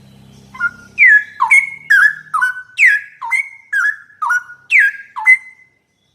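Straw-headed bulbul (cucak rowo) singing one loud phrase of rapid, liquid whistled notes, many sliding down in pitch, lasting about five seconds.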